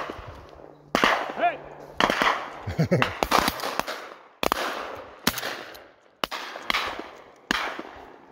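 Shotgun shots from several hunters firing at flushed pheasants, about a dozen sharp reports at irregular intervals, some close together in pairs, each trailing off.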